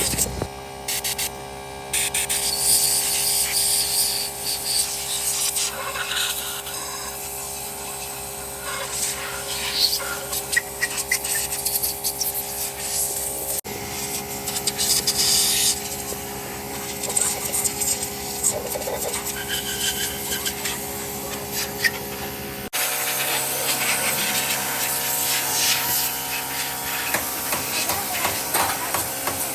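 Irregular hand scraping and rubbing on metal engine parts during cleaning, over a steady machine hum. The sound breaks off abruptly twice where the footage is cut.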